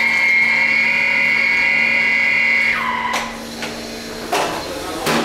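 The motor of a CWS self-cleaning toilet seat unit whines steadily while it sanitizes the seat after a flush. Under three seconds in it winds down with a falling pitch. A few clicks and knocks follow.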